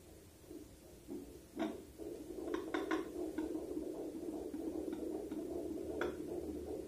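Handheld fetal doppler's loudspeaker: a few knocks and scrapes as the probe is moved over the gel-covered belly, then from about two seconds in a steady, louder signal as the probe picks up the fetal heartbeat.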